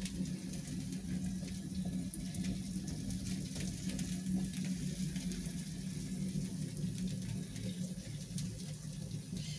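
Whole lamb sizzling on an iron grill over hot wood embers: a steady hiss with many fine crackles, over a steady low hum.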